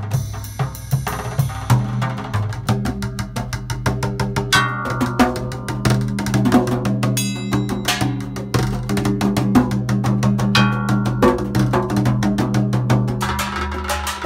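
Drum kit and tall hand drums played together with sticks in a fast improvised groove: rapid stick strokes and cymbals over a held low tone.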